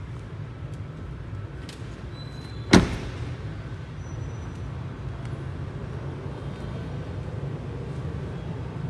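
A Ford Bronco's door shut once with a single sharp slam about three seconds in, over a steady low background rumble.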